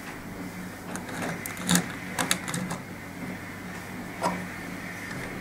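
Small sharp plastic clicks and taps from handling the BRIO toy locomotive's battery cap and an AA battery. There is a cluster of clicks a little under two seconds in and one more about four seconds in, over a steady low hum.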